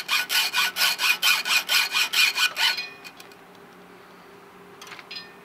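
Hacksaw sawing into a bike lock with quick back-and-forth strokes, about four a second, the blade ringing on the metal; it stops about three seconds in, followed by a couple of faint clicks near the end.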